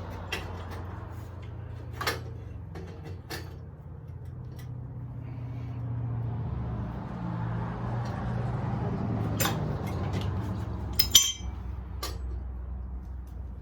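Scattered metallic clanks and clinks of tools and parts being handled, about seven knocks with the loudest, ringing one about 11 seconds in, over a low hum that swells in the middle.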